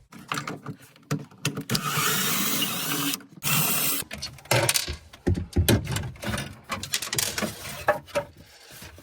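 Power screwdriver backing out two Phillips screws: one run of a bit over a second about two seconds in, a shorter one just after, then scattered clicks and knocks of plastic parts being handled.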